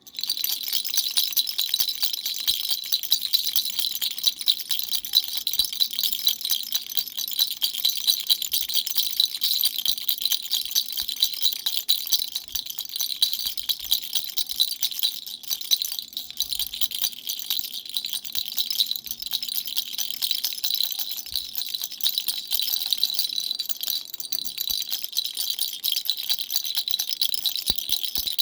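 Dumbbell-shaped baby rattle shaken without pause: a fast, dense, high rattling with a bright ringing edge.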